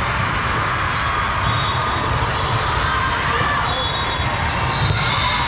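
Indoor volleyball game in a busy tournament hall: many players' and spectators' voices overlapping, short high sneaker squeaks on the court floor, and a sharp ball impact near the end.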